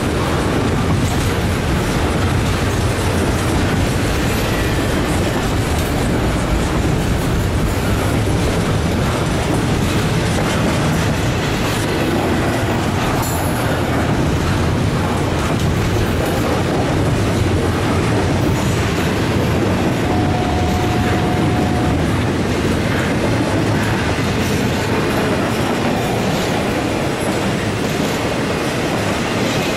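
Double-stack intermodal freight cars (container-loaded well cars) rolling past at close range: a steady, loud rumble of steel wheels on rail with repeated clicking over the rail joints. A brief steady wheel squeal comes about twenty seconds in.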